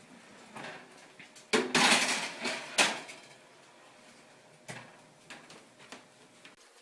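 Metal bakeware and dishes clattering in a kitchen: a rattling scrape about a second and a half in, a sharp clank just under a second later, and a lighter knock near five seconds.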